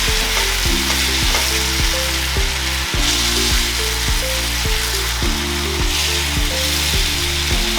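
Chicken drumsticks sizzling in a pot of fried onions and curry powder as blended tomato puree goes in, over background music with a steady beat.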